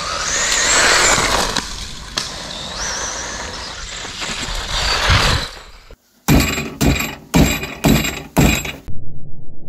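A WLToys 124019 RC car's brushed electric motor whines, rising and falling in pitch, over the hiss of its tyres on gritty asphalt. About six seconds in, after a sudden cut, come about six hard strikes, two a second, each with a high metallic ring, on a blue TPU 3D-printed suspension arm clamped in a steel bench vise.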